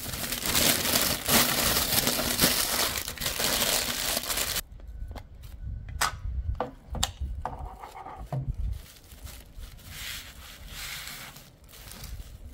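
Cooking paper and aluminium foil crinkling and crumpling as they are folded and pressed around a turkey leg. The crinkling stops abruptly after about four and a half seconds, followed by a few sharp clicks and faint handling noises.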